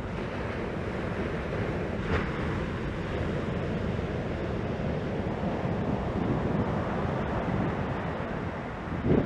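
Ocean waves breaking and washing up a sandy beach, under a steady rumble of wind on the microphone. There is a brief knock about two seconds in, and the noise swells louder near the end.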